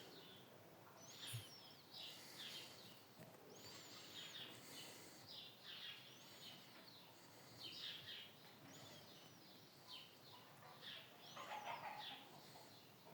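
Faint bird chirps, short arched calls repeating every second or so over a quiet hiss.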